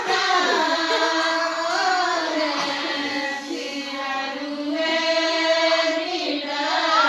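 A group of women singing together, holding long notes that rise and fall slowly in pitch.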